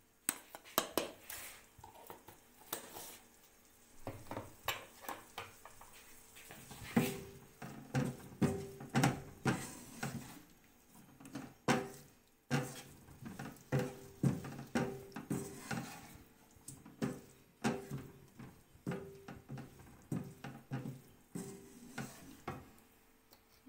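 Wooden spatula scraping and knocking against a nonstick wok while chicken and chopped vegetables are stir-fried. A few scattered strokes at first, then steady strokes about one or two a second from roughly a third of the way in.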